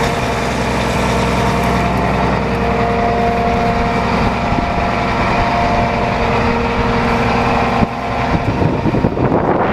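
1987 Case IH 4894 tractor's Cummins six-cylinder turbodiesel idling steadily. From about eight seconds in, wind buffets the microphone.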